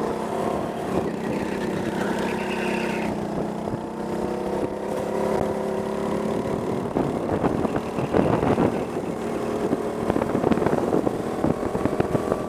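Go-kart engine running as the kart drives on track, its pitch steady with small shifts. In the second half, wind buffets the helmet-mounted microphone in gusts.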